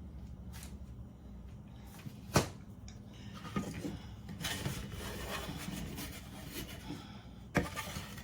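A utensil knocks sharply once against a dish, then a spoon scrapes and rubs thick, setting praline candy in a bowl, with another knock near the end. The candy is stiffening and is no longer pourable.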